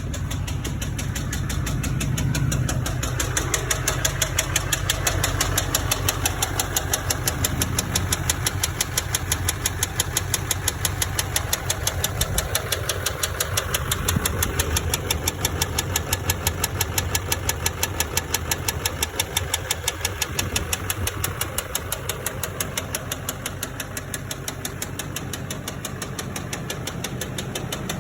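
LBZ Duramax 6.6-litre V8 turbodiesel running with a rapid, regular rod knock from a spun connecting-rod bearing on the crankshaft, damage the gasoline put into the diesel contributed to. The knock grows louder a few seconds in and eases near the end.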